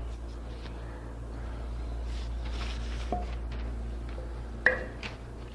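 Faint handling sounds of a gloved hand working a cloth rag over a steady low hum, with one sharp tap about four and a half seconds in.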